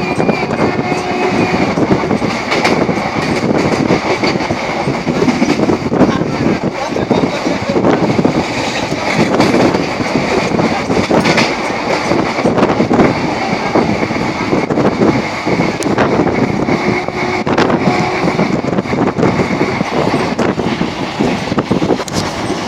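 Indian Railways passenger train running at speed: a loud, continuous rumble and rattle of coach wheels on the track, with irregular clicks over the rail joints.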